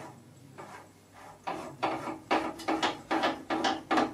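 Focus wheel at the back of an old Fresnel studio spotlight being turned, moving the lamp mechanism: a click at first, then from about a second and a half in a run of short scraping clicks, three to four a second.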